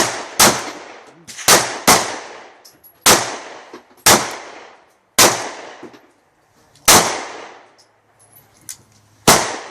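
Handgun shots at a shooting range: about nine sharp reports at uneven intervals, each trailing off in a long echo. They are too many for one five-shot revolver, so some come from other shooters.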